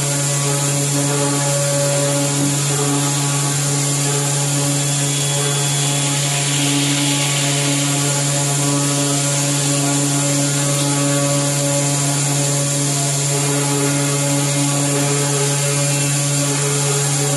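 CNC machining centre milling a forged aluminium wheel blank: a steady spindle and cutting hum with a few higher tones, over an even hiss of flood coolant spraying.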